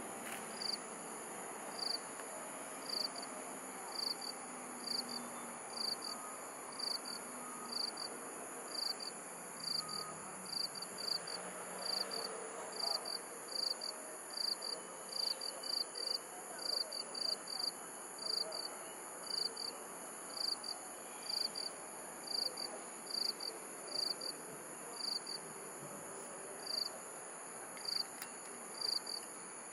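Crickets chirping at night: short, high-pitched chirps repeating about one or two a second, sometimes in quick pairs, over a steady high insect trill.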